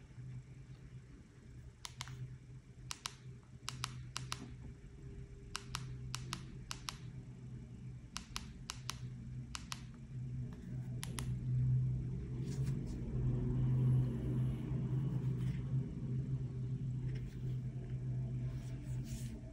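Keys on a Nokia 800 Tough's rubberised keypad clicking under a thumb, in single presses and quick runs of two or three, over a steady low hum. Later the clicks stop and there is a soft rustle of the phone being handled and turned over.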